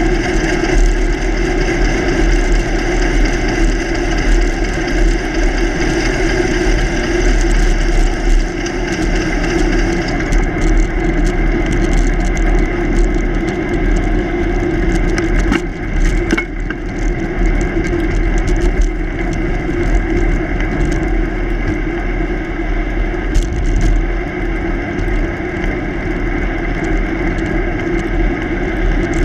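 Steady wind buffeting and rolling road noise from a bicycle riding along asphalt, heard from a camera mounted low beside the front wheel, with a steady hum through it. A few short clicks come about fifteen to sixteen seconds in.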